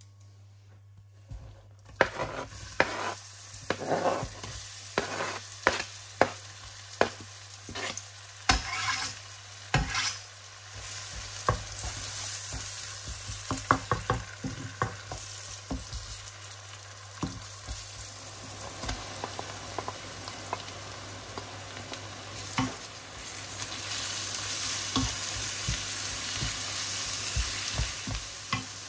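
Chopped onion and carrot frying in oil in a pan, sizzling, while a spatula stirs and knocks against the pan. After a quiet first couple of seconds come frequent sharp knocks; the sizzle grows louder in the second half.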